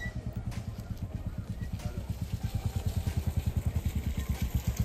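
Mahindra Thar SUV's engine running steadily, an even low pulsing beat at about ten pulses a second that grows gradually louder.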